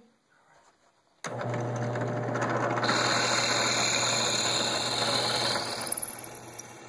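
Drill press running, its twist bit boring into the end grain of a wooden dowel: a steady motor hum with a rough cutting noise that starts suddenly about a second in. A high whine joins in the middle for about three seconds.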